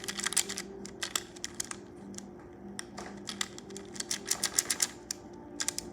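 A plastic speedcube being turned quickly in the hands: rapid clicks and clacks of its layers in uneven bursts, over a faint steady low hum.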